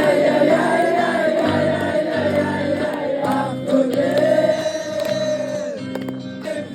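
Several voices singing together over backing music, holding long drawn-out notes.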